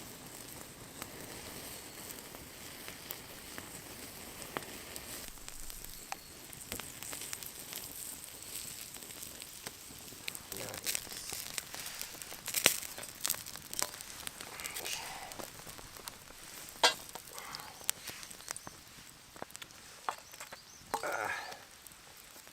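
Campfire crackling and hissing, with scattered sharp pops, two of them loud about halfway through and some way after.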